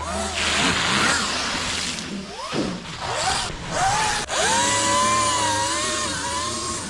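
Sur-Ron Light Bee electric dirt bike's motor whining, rising and falling in pitch as the throttle opens and closes. It breaks off sharply about four seconds in, then returns as a steadier high whine.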